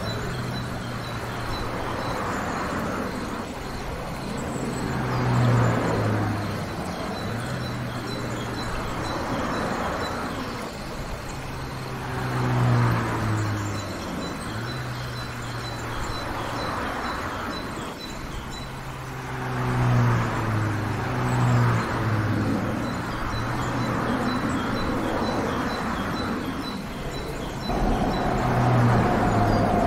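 Vehicle and jet engine noise on an airport apron: a low engine hum with swells of engine noise every few seconds as vehicles and aircraft move past, and a steady whine coming in near the end.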